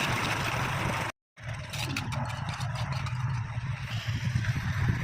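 An engine running steadily with a low, even hum, cut off for a split second about a second in.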